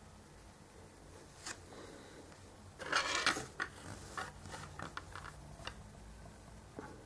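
Hands handling a small die-cast model car and paint things on a wooden tabletop: a brief scraping rattle about three seconds in, then a run of light clicks and taps.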